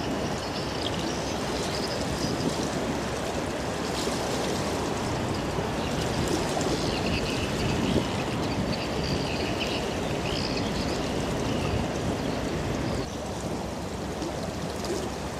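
Container ship's bow wave rushing and splashing along the hull: a steady, loud wash of churning water, with faint high chirping over it. About 13 s in it drops a little quieter as the ship's propeller wash takes over.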